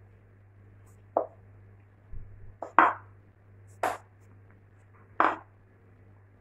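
Wooden rolling pin rolling out dough on a tiled countertop, knocking against the tile: about five sharp knocks roughly a second apart, with a duller low thud about two seconds in.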